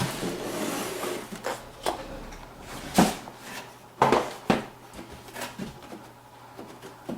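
Handling of a motherboard box and its packed accessories: scattered knocks and clicks with some rustling, the sharpest knocks about three and four seconds in.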